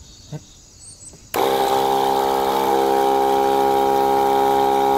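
Electric knapsack sprayer's DC pump motor, wired straight to a battery, starts about a second in, runs with a steady, even whine for about four seconds, then cuts off. It shows the motor working again now that its broken supply wire has been soldered.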